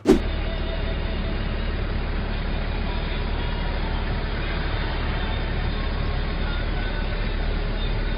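Steady street ambience of passing road traffic, a constant low rumble with a hiss over it.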